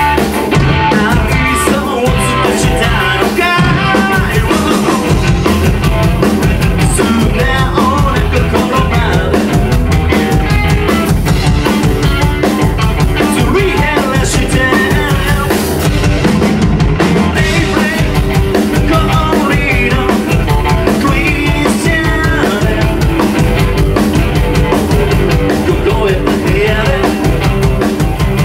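Live rock band playing loudly: drum kit driving a steady beat under electric guitars.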